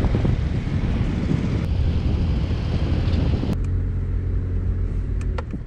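A four-wheel drive driving along a sandy beach track: steady engine and tyre rumble, with wind rushing past the open driver's window that drops away about three and a half seconds in, leaving the steadier engine hum heard from the cabin.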